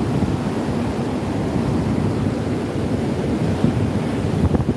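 Heavy surf breaking on the beach, a steady loud rumble, with wind buffeting the microphone. A few short knocks come near the end.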